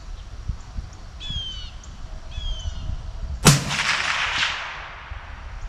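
A single rifle shot from a Ruger SFAR in .308 Winchester, a sharp crack about three and a half seconds in that rings out and fades over about a second. Before it a bird calls twice with short falling whistles, over a low rumble of wind on the microphone.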